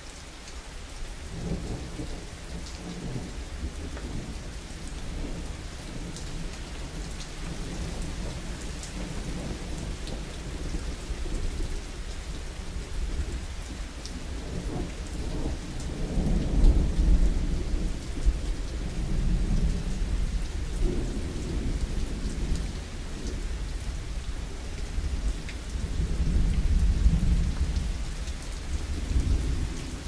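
Steady rain with rolling thunder. Low rumbles swell to their loudest about halfway through and again near the end, with fine drop ticks over the rain's steady hiss.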